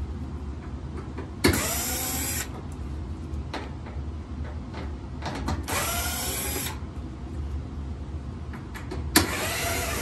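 Cordless drill-driver backing out sheet-metal screws from a dryer's front panel in three short runs of about a second each, the motor spinning up each time, with a sharp click at the start of the first and last run.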